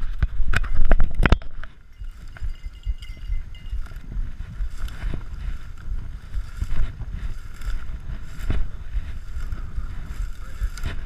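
Wind buffeting the microphone, a gusty low rumble, with knocks and crackles from handling. These are loudest in the first second and a half, then come as scattered thumps.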